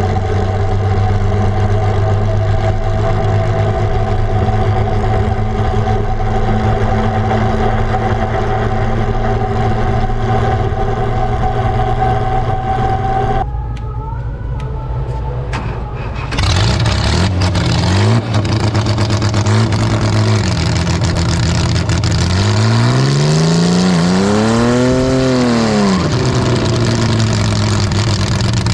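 Holden grey-motor straight-six in a front-engined dragster, running steadily as the car rolls along, its note rising slowly. After a cut it runs at the start line, blipped briefly a couple of times and then revved up and back down once over a few seconds.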